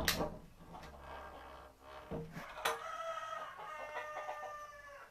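A rooster crowing: one long drawn-out call starting under three seconds in and sagging slightly in pitch as it ends.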